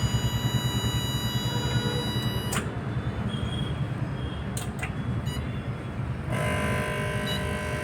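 Luminous home inverter humming with a coarse, rattling buzz, the 'gharr gharr' fault sound that comes before the inverter shows low battery. A steady high whine rides over the hum, cuts out after a click about two and a half seconds in, and comes back about six seconds in.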